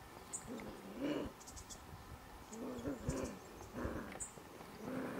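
Bennett's wallaby making short, low, throaty calls, four or five spread over a few seconds, with faint high chirps in the background.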